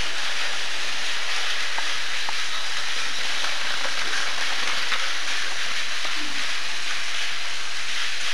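Battery-powered Tomy toy trains running on plastic track, a steady whirring hiss that stays even throughout, with a few faint ticks.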